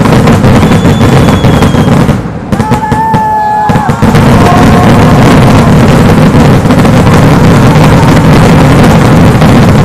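Dense, unbroken barrage of exploding rockets and firecrackers at close range, very loud. About two to four seconds in, the bangs thin out briefly and a short steady whistle is heard.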